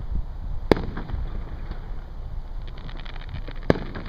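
Aerial firework shells bursting: two sharp bangs about three seconds apart, the first about a second in, with faint crackling between them. A low rumble runs underneath.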